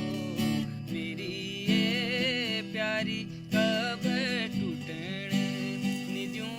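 Instrumental intro of a Kumaoni folk song: plucked strings under a wavering melody line with vibrato.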